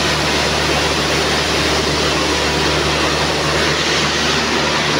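Many nylon zipper coil-forming machines running together: a steady, dense mechanical noise with a low hum underneath.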